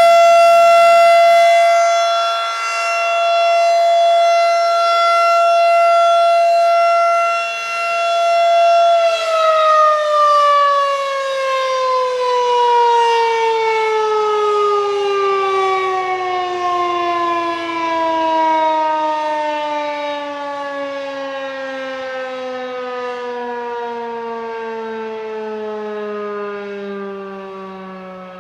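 Federal Signal 2001-DC battery-powered outdoor warning siren sounding one steady wail at full speed, its loudness swelling and fading. About nine seconds in it is cut off and winds down, the tone sliding steadily lower to the end.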